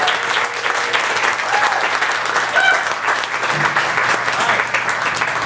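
Audience applauding after a song ends, a dense steady clatter of many hands, with a few voices calling out faintly.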